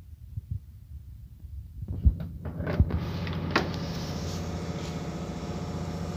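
Sounding tape being reeled up out of a ballast tank's sounding pipe: a mechanical whirring with a few sharp metal knocks about two to three and a half seconds in, over a steady machinery hum that comes in about two seconds in.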